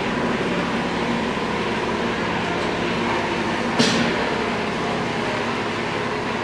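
Steady mechanical drone with a low hum, the sound of running machinery, with a single sharp knock about four seconds in.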